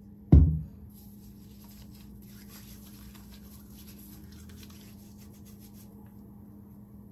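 A single low thump, then several seconds of faint rubbing: skin being rubbed to take off self-tan with a tan-remover mousse.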